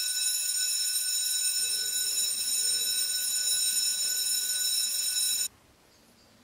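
A loud, steady, high-pitched electronic buzzer or alarm tone with several overtones, cutting off suddenly about five and a half seconds in, leaving faint outdoor background.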